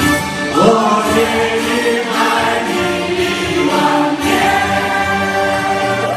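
Live band music with voices singing long held notes; one note slides up about half a second in.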